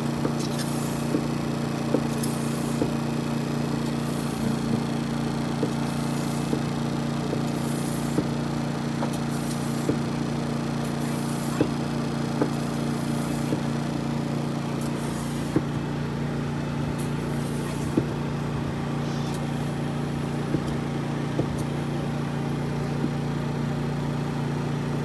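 A motor running steadily with a constant two-toned hum, having switched on just before, with light clicks about once a second.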